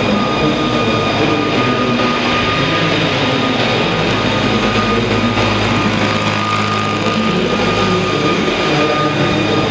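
Large scale radio-controlled Boeing-Vertol CH-47 Chinook model helicopter hovering, its tandem rotors and drive running at a steady speed with a constant high whine over a low hum.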